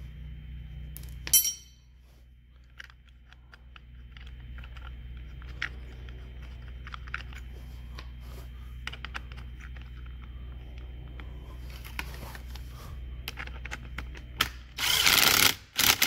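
Scattered light clicks and handling noises as the seatbelt anchor bolt is threaded in by hand. Near the end, two short bursts of a handheld power tool running the bolt down, the first about a second long and the second briefer.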